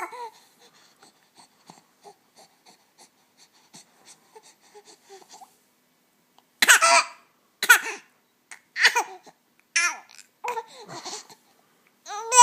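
Two-month-old infant cooing. A few faint breaths and small mouth sounds come first, then from about halfway a run of short pitched coos, roughly one a second.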